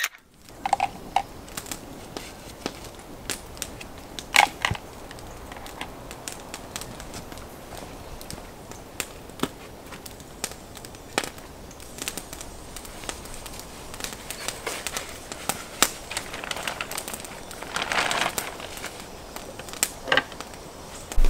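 Gear being handled while packing up: scattered light clicks and crackles, with short rustles about four seconds in and again near the end.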